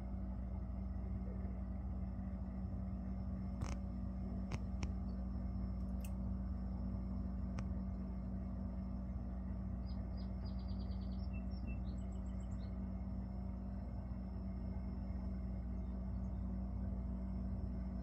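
Steady low machine hum that holds an even level throughout. A few faint sharp clicks come between about four and eight seconds in, and a short run of quick, faint high chirps comes around ten to twelve seconds in.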